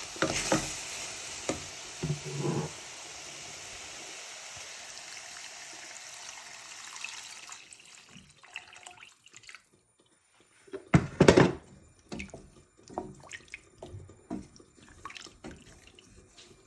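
Water poured into a hot pan of sautéed vegetables, hissing steadily and dying away over about eight seconds. After a short silence, a couple of loud knocks come in the middle, followed by light scattered clicks.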